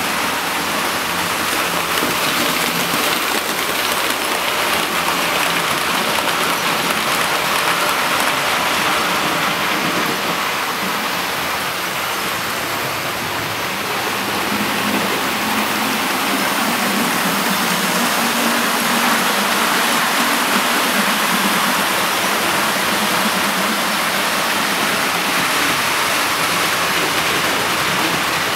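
Steady rushing noise of 00 gauge model trains running on the track, with a faint low hum in the middle stretch.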